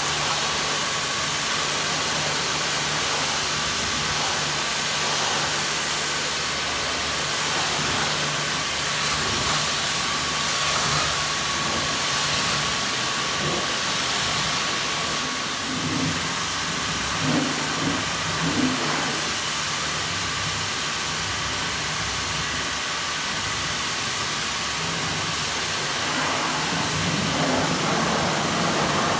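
Pressure washer running: the steady hiss of the high-pressure water jet over a steady pump hum and whine, with a few brief louder splashes about two-thirds of the way in.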